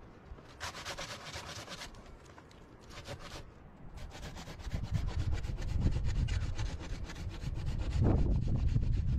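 Rapid, rhythmic scraping strokes, first in short bursts and then continuous, with a low rumble that grows louder from about five seconds in.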